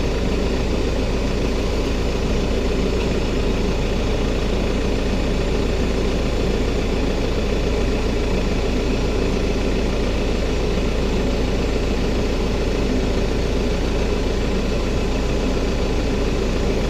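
Tractor engine idling steadily, an even low hum that does not change.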